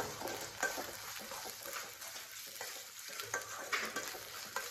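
Chopped onions with ginger-garlic paste frying in oil in a stainless-steel kadai, stirred with a metal slotted spoon: a soft sizzle with irregular scrapes and clinks of the spoon against the pan as the onions are sautéed.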